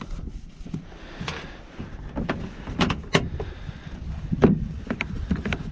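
A series of irregular hard knocks and clunks, as of gear or a paddle bumping a plastic kayak, over a steady low rumble of wind and water. The loudest knocks come near the middle and about three quarters of the way through.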